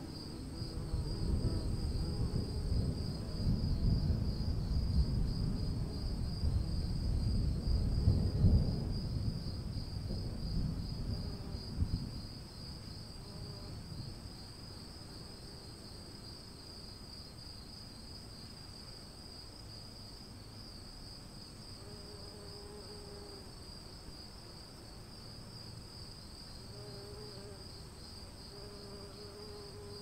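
Distant thunder rumbles for about the first twelve seconds, then dies away. Under it runs a steady chorus of crickets, a high pulsing trill.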